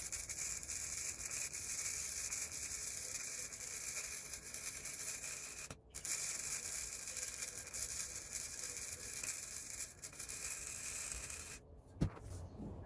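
Small Harbor Freight Chicago Electric MIG welder running gasless on DC, its arc crackling and sizzling steadily in two runs of about six seconds each, with a short break near the middle. The welder is short of the power to penetrate the 3-inch C-channel properly. A single knock follows just before the end.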